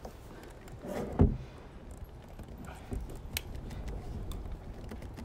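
Hard plastic handling noises as a water butt's rain diverter connector is worked into place against the downpipe: small clicks and knocks, with one loud thump about a second in and a sharp click a little past three seconds.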